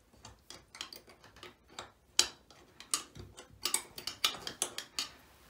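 Irregular light metallic clicks and taps of a small wrench working the screw under a metal bathtub spout as it is tightened, with a loud single click about two seconds in and a quick cluster of clicks near the end.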